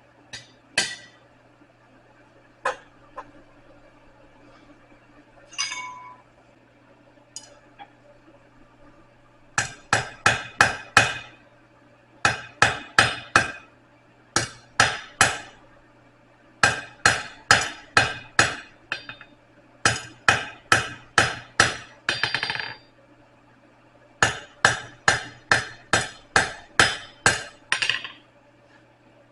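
Blacksmith's hammer striking metal on an anvil in bursts of quick, ringing blows, about four a second, with short pauses between bursts. A few scattered knocks and clinks come first.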